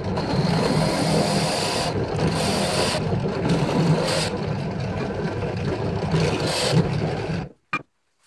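Bench drill press running with a Forstner bit boring a large hole into a thick wooden disc: a steady motor hum with brighter rasping surges each time the bit is fed into the wood. The sound cuts off about seven and a half seconds in, followed by a short click.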